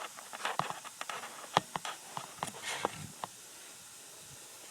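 Close handling noise: a series of sharp clicks, knocks and rubbing as the recording camera is fitted onto a tripod, stopping a little over three seconds in.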